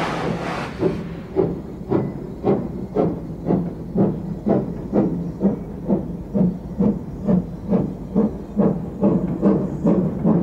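Steam locomotive releasing a loud hiss of steam that dies away about a second in, then exhaust beats at about two a second, quickening slightly as it gets the train moving.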